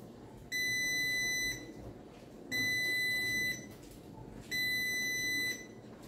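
Mini folding portable washing machine beeping three times, each beep a steady high tone about a second long, two seconds apart: the signal that its wash cycle has finished.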